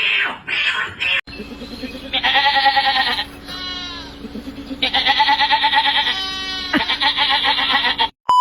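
Goat bleating: three long quavering bleats with shorter falling cries between them, over a steady low hum. A short, loud beep comes at the very end.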